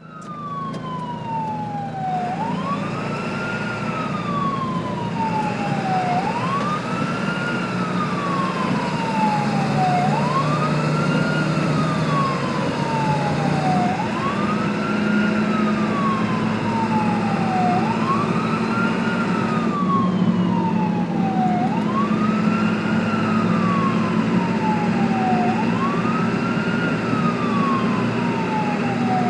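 Ambulance siren wailing in a repeating cycle about every four seconds: each cycle a slow falling tone and then a quick rise, over a steady low hum. It grows louder over the first few seconds.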